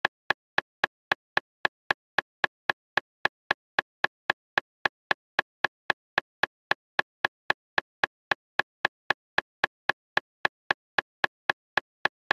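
Speed-reading software's metronome-like pacing clicks, sharp and evenly spaced at about four a second, each one keeping time with the reading highlight's jump to the next pair of words.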